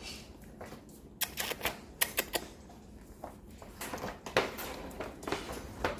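Irregular light clicks and taps, a few in quick succession about a second in and more in the last two seconds.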